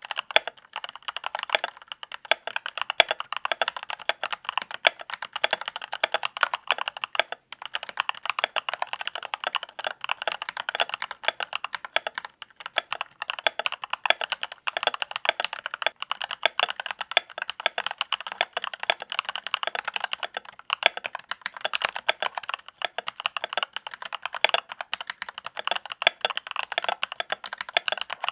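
Continuous fast typing on a Royal Kludge RK96 mechanical keyboard: a dense stream of key clicks and clacks, with a brief pause about seven seconds in.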